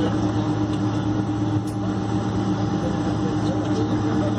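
Steady cabin noise inside a Boeing 747-400 on the ground after landing: an even hum with a few steady low tones from its PW4000 engines and cabin air.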